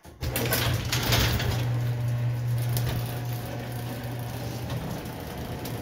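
Sectional garage door going up on an electric opener: a steady motor hum with the rollers clicking and rattling along the steel tracks, starting just after the beginning.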